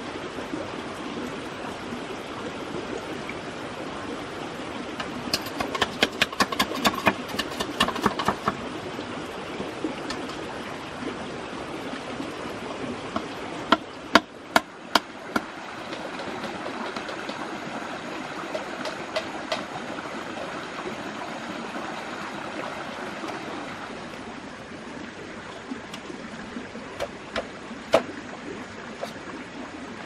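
A large knife chopping into fresh green bamboo: a quick run of sharp knocks a few seconds in, four harder single strikes about halfway through, and a few more near the end. Underneath is a steady rush like a flowing stream.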